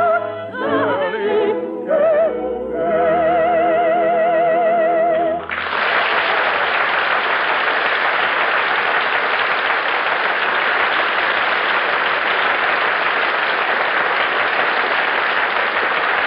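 Operatic singing with orchestral accompaniment ends on a long held note with vibrato, about five and a half seconds in. Studio audience applause follows and runs on steadily.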